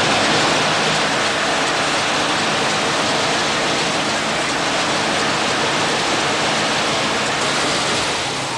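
A steady, even rushing hiss with no pitch or rhythm to it, holding at one level throughout.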